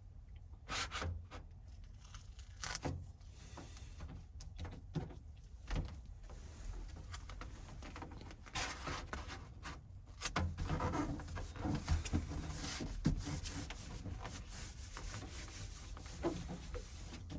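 Rubbing and scraping with scattered clicks and taps as a sound-deadening mat is pressed and rolled flat onto a car's floor, getting louder about ten seconds in.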